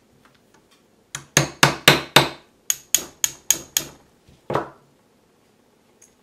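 Pin punch being tapped with a small hammer to drive the tiny pin holding the trigger spring out of a Browning Hi-Power trigger: sharp metallic taps in two quick runs of about five at roughly four a second, then one more tap.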